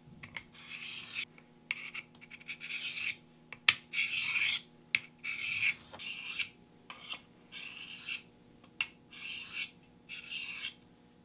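A knife blade stroked dry across the coarse side of a Smith's diamond sharpening plate, a rasping scrape on each pass. About ten strokes come with short pauses between them, and there is one sharp click a little over a third of the way through.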